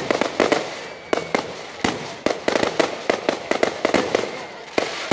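Aerial firework shells bursting in a rapid, irregular run of sharp bangs, several a second.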